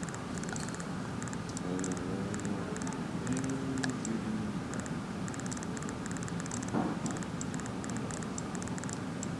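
Typing on a computer keyboard: irregular runs of quick key clicks over a steady background noise.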